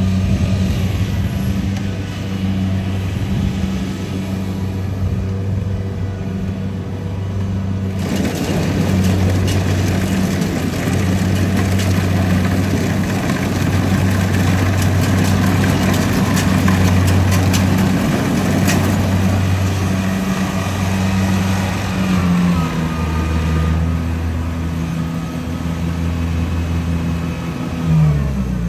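Rice combine harvester's engine running steadily. About eight seconds in, a dense rattling noise joins it for most of the stretch, then fades; near the end the engine note shifts briefly.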